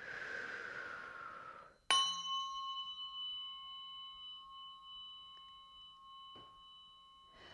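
A soft rush of air for about two seconds, then a tuning fork struck sharply and left ringing with a few steady high tones that slowly fade.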